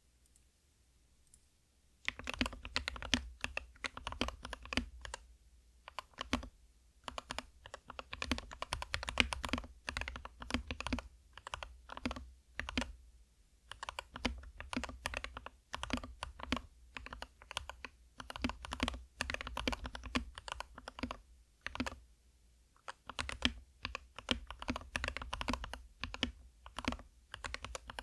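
Typing on a modded SK61 60% mechanical keyboard with lubed Gateron optical red linear switches: fast runs of key clacks in bursts with short pauses between them. The first two seconds are quiet before the typing starts.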